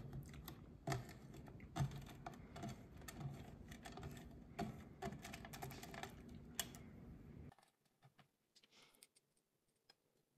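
Thin strands of set milk chocolate clicking and snapping lightly as fingers gather and press them together on a frozen cutting board: a quick run of small clicks and taps that cuts off abruptly about seven and a half seconds in, leaving a few faint ticks.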